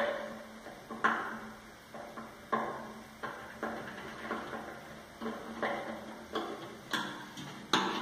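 Screwdriver working screws into a microwave oven's sheet-metal housing: a string of irregular clicks and light metallic taps, about one or two a second.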